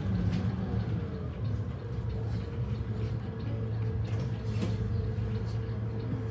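Volvo B7RLE bus's six-cylinder diesel engine running at low revs as the bus creeps up to a red light and stops, heard inside the cabin as a steady low hum with a faint steady whine above it. A short click comes about four and a half seconds in.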